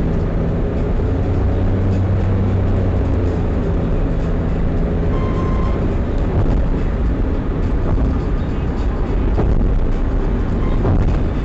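Honda N-BOX+ kei car making an abnormal noise: a loud, steady rumble with a low hum that holds for about the first five seconds and then fades into the rumble.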